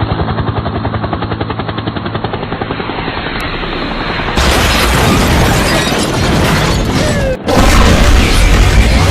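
A car engine running with a fast, even pulsing beat, then an abrupt change about four seconds in to a much louder, rougher noise, briefly cut off near the end before it resumes.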